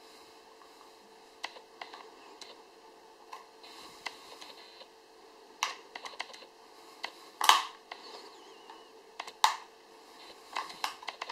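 A fingernail prying the plastic back cover off an Allview P3 AllDro smartphone: scattered small plastic clicks and scrapes, with two louder snaps in the second half.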